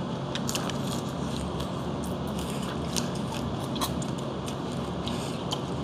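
Eating steamed red snow crab: scattered cracks and clicks of crab shell being bitten and broken open, with chewing, over a steady background hiss.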